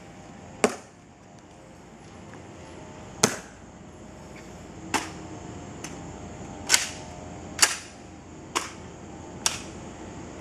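Ceremonial guards' drill at the Tomb of the Unknown Soldier: sharp, single clicks and snaps from metal-tapped heels and hands slapping a rifle, seven strikes spaced irregularly over about ten seconds.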